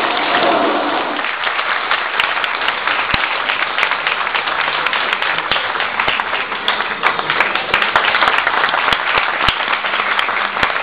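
Audience applauding with dense, steady clapping, which takes over as the music's last notes fade about a second in.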